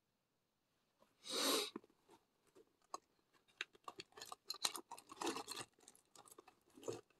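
Rummaging through a handbag: rustling and many small clicks and taps as items are handled, beginning with a brief louder rustle about a second and a half in.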